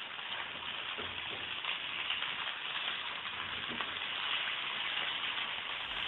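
Aloo tikkis (mashed-potato patties) sizzling steadily as they shallow-fry in hot oil in a nonstick pan. A wooden spatula turning the patties over makes a few faint scrapes and taps.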